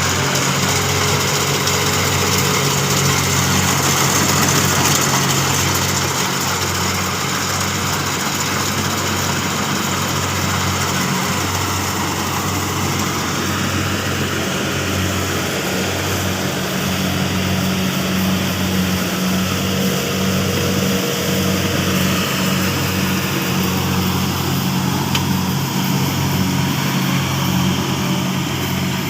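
Kubota rice combine harvester running steadily at an even pitch.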